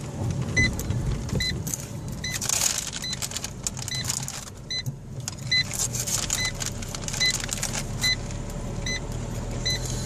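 Car cabin while driving slowly: steady engine and road rumble, with a short high electronic beep repeating about every 0.7 seconds.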